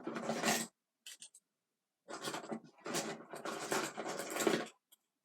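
Hard plastic toy keys being handled and shuffled, scraping and rubbing in several short bursts.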